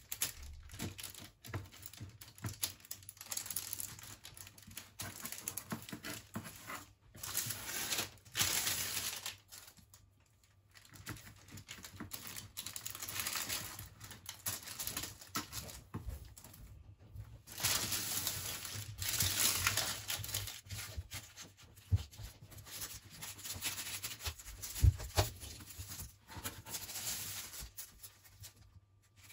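A large kitchen knife cutting through a slab of hardened chocolate over a ground-peanut filling, crackling and scraping on the baking paper in irregular strokes, with a couple of sharp knocks near the end.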